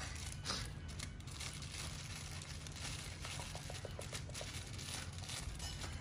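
Thin clear plastic bag crinkling and rustling in irregular bursts as a dog pushes its muzzle into it and licks inside.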